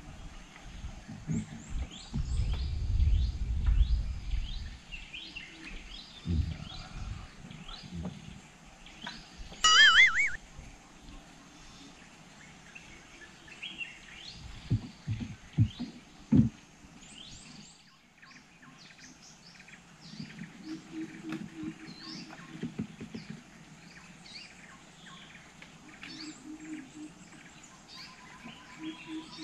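Wild birds chirping in the riverside forest, many short high calls with one louder wavering call about ten seconds in. Dull low knocks and bumps from the wooden canoe as the fishing rods are handled.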